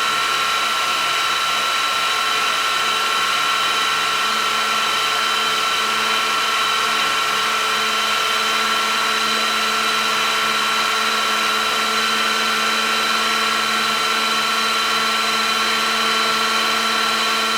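Electric motor and rotor of a scale RC AH-64 Apache model helicopter running with a steady whine at a constant pitch, made of several high tones.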